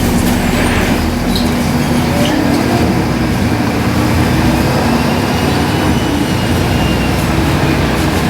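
Volvo B7RLE bus's six-cylinder diesel engine running with a steady drone, and a faint high turbo whistle that rises and falls in the middle of the stretch.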